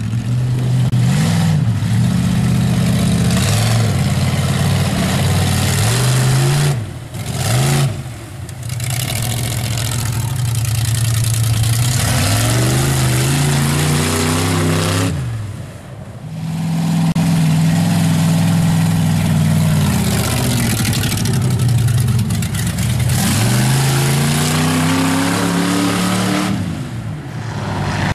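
Lifted mud truck's engine revving hard through a mud bog pit, its pitch climbing and falling again and again. It briefly lets off about seven and sixteen seconds in.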